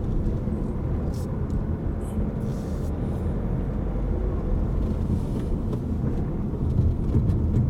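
Car driving at low speed, heard from inside the cabin: a steady low rumble of engine and road noise.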